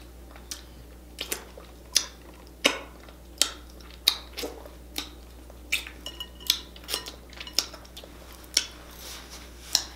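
Wet lip smacks and sucking sounds as sauce is licked off the fingers: a run of short, sharp smacks, about one or two a second.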